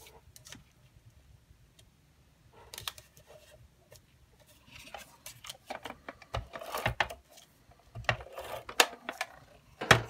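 Handheld tape-runner adhesive rasping in short strokes across the backs of paper photo squares, mixed with paper handling and the squares being pressed onto the page. Irregular scrapes and clicks, busiest in the second half, with a sharp click near the end.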